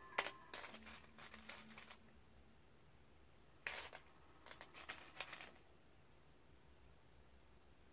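Faint clicks and light rattles of small plastic Lego pieces handled and sorted by hand: a few clicks near the start and a short cluster around the middle.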